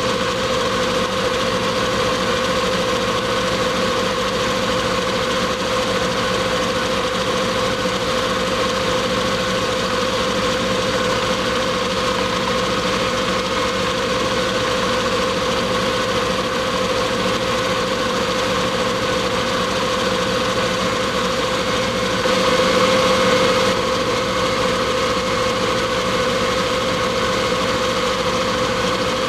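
Metal lathe running steadily with a constant hum and whine, taking light turning cuts on a half-inch bar; the sound swells briefly about 22 seconds in.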